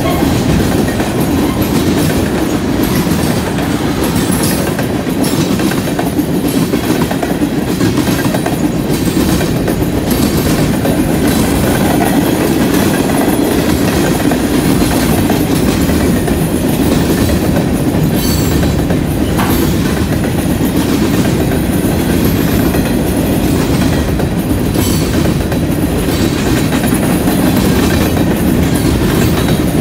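Freight train cars (tank cars and covered hoppers) rolling past at close range: a steady loud rumble of steel wheels on rail, with repeated clicks as wheelsets pass over rail joints.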